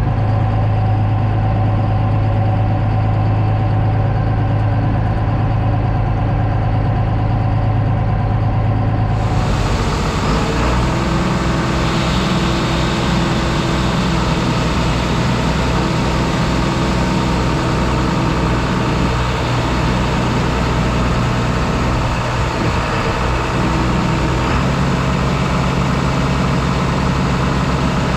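Diesel engine of a 9500 combine running steadily. About nine seconds in the sound changes abruptly to a different, deeper engine note with more hiss above it.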